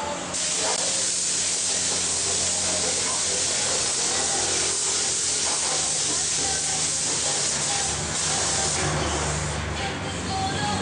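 Compressed-air paint spray gun hissing steadily as it sprays, with a few brief dips near the end where the spray eases off.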